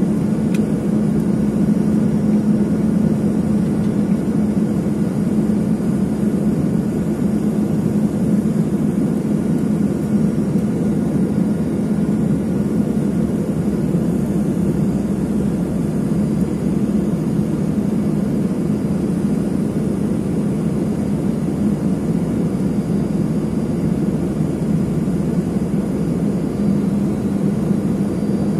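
Steady cabin noise inside an Embraer ERJ-145 regional jet on its approach: rushing air and the even hum of its twin rear-mounted Rolls-Royce AE 3007 turbofans.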